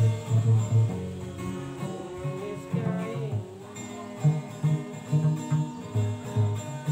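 Banyuwangi-style song played on makeshift instruments: plucked, strummed strings with a steady beat of short low notes under a held, gliding melody line.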